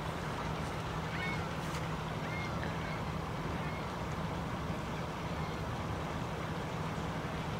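Canada geese giving a few short honks, about a second in and again at two to three and a half seconds, over a steady low hum and rumble.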